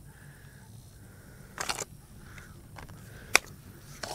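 Metal shaft sections of a cordless pole saw being pushed together by hand: a brief scrape, then one sharp click as the tube slides in until it hits its stop, with a few light handling clicks near the end.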